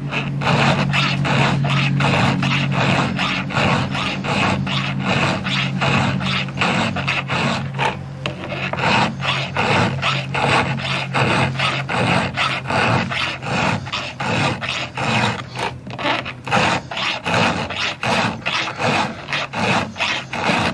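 A file rasping in quick, even strokes across the teeth of a dull chainsaw chain, sharpening it by hand. A steady low hum runs underneath and fades out about halfway through.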